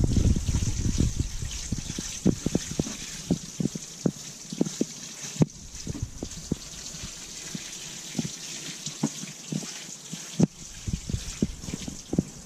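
Water sprinkling from the rose of a plastic watering can onto freshly sown soil: a steady soft hiss, with many small irregular taps.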